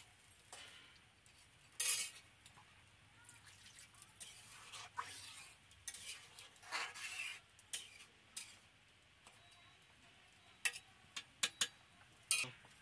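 Metal spatula stirring chunks of yam in a watery masala curry in an aluminium kadai, in short scraping strokes, with a few sharp clicks of metal on the pan near the end.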